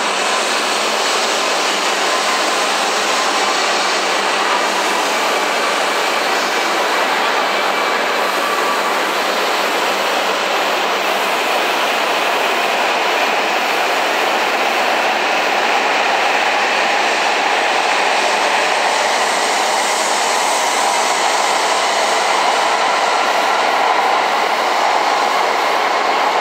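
Coupled E5 and E6 series Shinkansen train pulling out of the platform and running past: a steady, loud rush of cars and wheels, a little louder in the second half.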